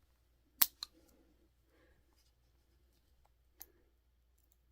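Pet nail clipper snipping through a dog's claw: a sharp snip about half a second in with a small click right after, and a fainter snip near the end.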